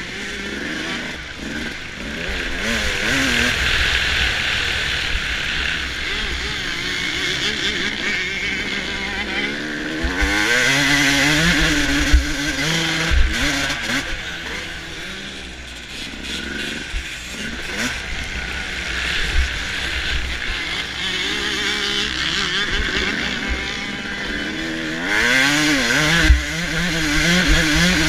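Onboard sound of a 2005 Suzuki RM250's 250 cc two-stroke single-cylinder engine racing on a dirt track. It revs up and drops back over and over as the rider twists the throttle and changes gear, with a few sharp thumps.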